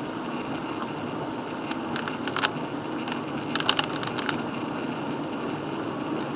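Car driving on a wet road in the rain, heard inside the cabin: a steady hiss of tyre and road noise, with two short clusters of light clicks about two seconds in and again around four seconds.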